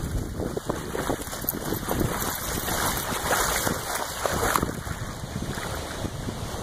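Floodwater sloshing and splashing, a steady rush broken by many small irregular splashes.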